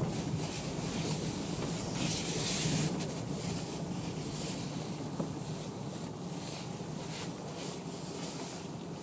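A vehicle driving slowly across a gravel car park: a steady low engine hum under tyre and wind noise, swelling briefly about two seconds in.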